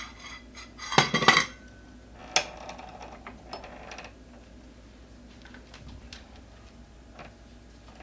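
Metal hand tools clinking and clattering against each other and a hard surface: a loud cluster of clatters about a second in, a sharp clack a little later, then a few light clicks.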